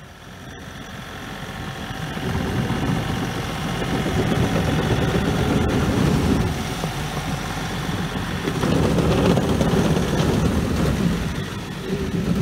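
Engine of a Truxor amphibious reed cutter running under load as the machine drives off the bank into the canal and on through the water. Its tracks churn the water. The sound grows louder over the first few seconds, eases briefly around the middle, then rises again.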